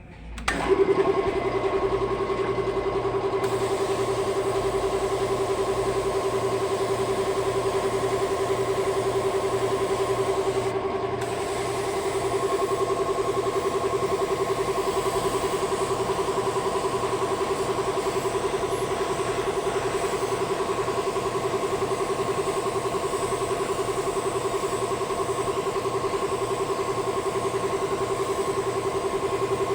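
A small electric tool motor switched on about half a second in, then running at a steady speed with a constant whine; it sags briefly about eleven seconds in.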